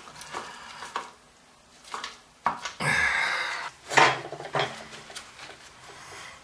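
Metal clinks and knocks from working a toilet closet bolt at the porcelain base, with a short scraping rustle just under three seconds in and a sharp knock about four seconds in.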